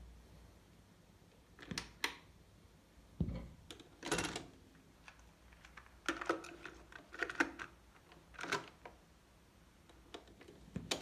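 Mechanical clicks and clunks from a FAITH SX-101 stereo cassette deck being loaded: the cassette door opens on eject, a cassette is pushed into its holder and the door is shut. Near the end a piano-key transport button is pressed with a single click. About eight separate sharp clicks, spaced irregularly.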